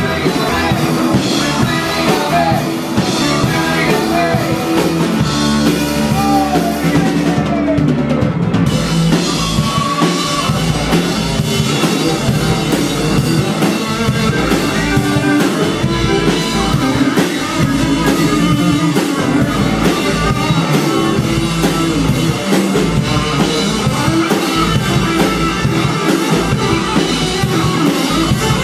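A rock band with drum kit playing an instrumental passage. About eight seconds in, the music changes abruptly to a denser, harder rock song.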